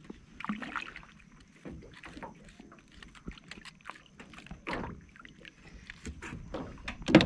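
Handling noises in a small fishing boat: scattered knocks, clicks and light clatter, with a sharp knock near the end.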